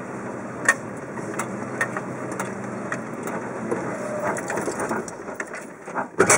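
Nissan Patrol 4x4 crawling over creek rocks, heard from inside the cab: the engine runs low and steady under irregular crunches and knocks of the tyres and body on rock and gravel. The knocks come thicker in the second half, with a couple of loud ones near the end.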